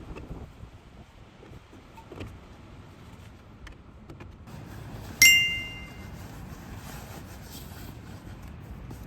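A single bright metallic ding about five seconds in, ringing on for about a second before fading, over a low background rumble with a few faint clicks.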